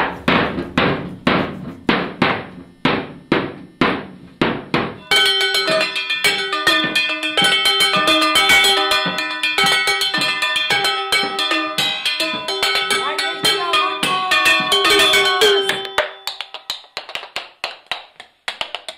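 A home-made kitchen drum kit played in a steady beat: upturned pots, bowls and cups struck with wooden cooking spoons, with a wooden olive crate kicked as the bass drum. About five seconds in a pitched tune joins over the beat; it drops out near the end, leaving lighter strikes alone.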